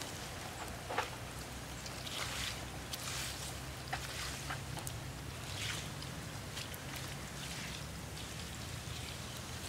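Hands rummaging through wet mud and dead leaves in a woven bamboo basket: irregular rustling and wet squelching, with a couple of sharp clicks. A steady low hum runs underneath.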